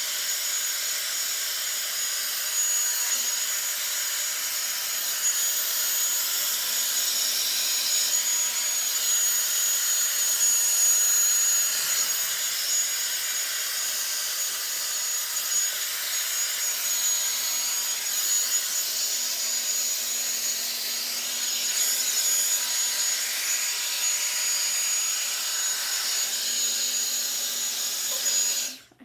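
Revlon One-Step hair dryer and volumizer brush running steadily: fan motor and rushing air with a thin high whine. It is switched off abruptly just before the end.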